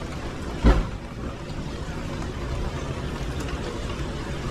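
Steady rain and wet-street noise with a low rumble, broken by one loud, brief thump under a second in.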